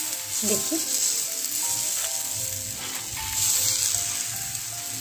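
Gram-flour (besan) chilla batter sizzling in mustard oil on a hot tawa while a steel ladle spreads it out: a steady frying hiss.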